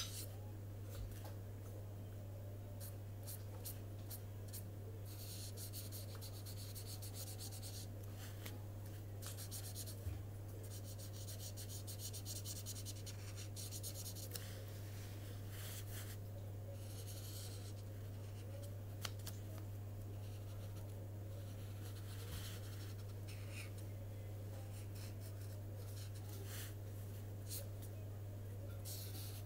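A pen scratching and rubbing across paper in stretches of quick back-and-forth strokes with short pauses, colouring in a shaded area of a drawing. A steady low electrical hum runs underneath.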